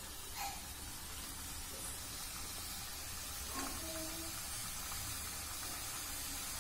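Small pieces of wheat-flour biscuit dough deep-frying in hot oil in a pan: a steady, quiet sizzling hiss.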